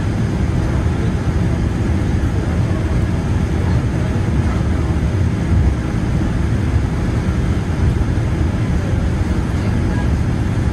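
Steady low rumble inside a Boeing 787-9's cabin while it taxis: the engines at idle thrust and the wheels rolling over taxiway concrete, with a faint steady hum.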